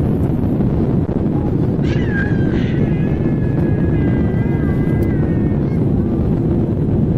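Airliner cabin noise: a steady, loud low engine and air roar. About two seconds in, a high, drawn-out wavering cry rises above it and lasts about four seconds.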